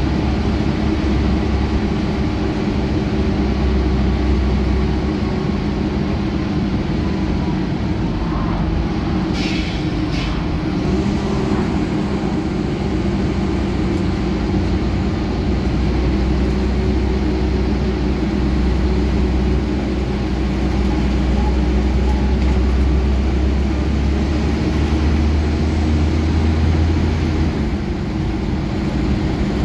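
Scania N94UB bus's rear-mounted diesel engine running under way, heard from inside the saloon, with road and body noise. The low rumble grows heavier from about fifteen seconds in and eases near the end. Two short hissing sounds come about nine to ten seconds in.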